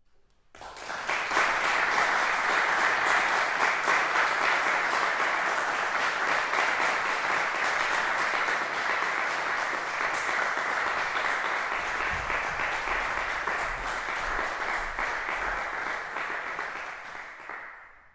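Audience applauding: a dense, steady clapping that starts about half a second in and dies away near the end.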